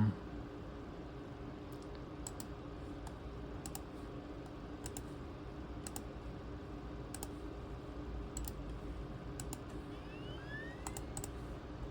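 Scattered single key clicks on a ThinkPad T23 laptop keyboard, pressed one at a time with pauses between, over a steady low hum.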